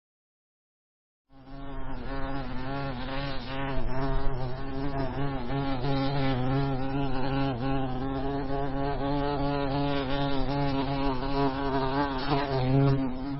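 Honey bee buzzing close up: a steady buzz with a slightly wavering pitch that starts about a second in after dead silence and fades near the end.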